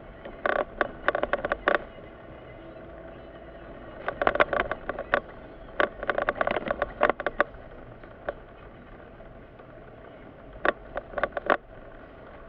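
Car cabin sound while driving: a steady low hum of engine and road, broken by several bursts of rapid clicking and rattling knocks.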